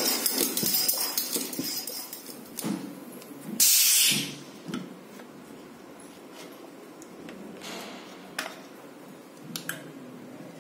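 Bicycle air pump working in rhythmic strokes that fade out, then a short, loud hiss of air as the pump head is pulled off the tyre's Schrader valve. A couple of small clicks follow near the end.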